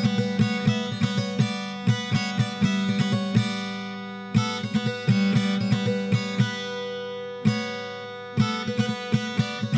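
Background music on plucked strings, like an acoustic guitar, picking quick runs of notes over a steady low note. It lulls twice, about a third and about two thirds of the way in, where the notes ring out.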